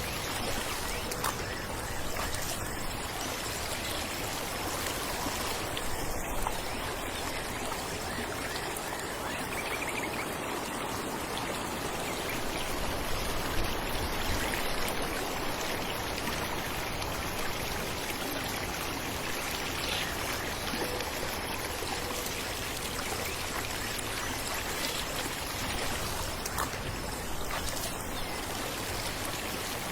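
Falling water running and splashing in a steady, even rush, with occasional small splashes standing out.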